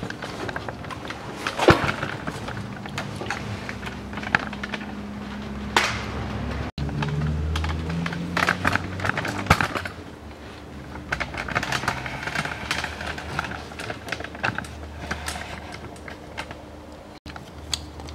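Scattered clicks, taps and rustling of a hand and a handheld camera moving among the parts under a car, with a low hum for a few seconds about seven seconds in.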